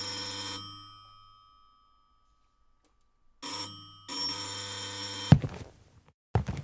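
A doorbell ringing: a first ring that fades away, then a short ring and a longer one about three and a half seconds in. The last ring ends in a sharp knock, and a short thump follows near the end.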